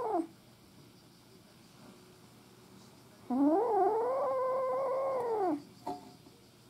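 A kitten about seven weeks old meowing. The tail of one call falls away right at the start. About three seconds in comes one long meow of a little over two seconds, which wavers up and down, holds, then falls at the end.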